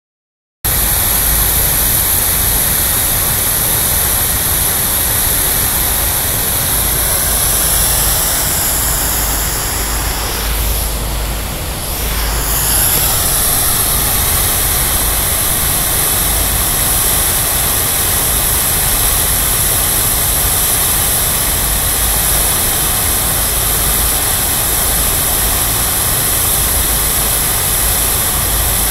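Large fountain's central jet and spray ring falling into the basin: a steady loud rush of splashing water over a low rumble. The sound dips briefly and shifts about eleven seconds in.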